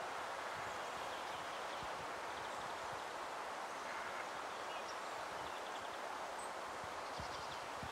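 Woodland ambience: a steady rushing noise, with a few faint, short bird trills now and then.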